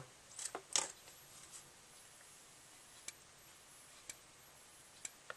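Notifier NWS-24 remote fire-alarm strobe powered up and flashing: a faint, high-pitched whine with a short tick at each flash, about once a second. Two louder clicks come just after power-on.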